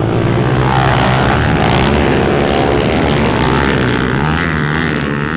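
Dirt bike engine running hard, its pitch falling and rising as the rider works the throttle and gears.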